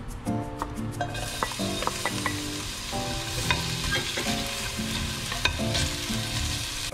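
Sliced onions sizzling in hot oil in a stainless steel pot, the hiss starting about a second in. A spatula stirs them, with light ticks against the pot.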